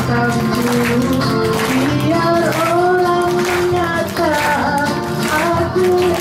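Women singing a melody into microphones over a backing music track, with long held notes.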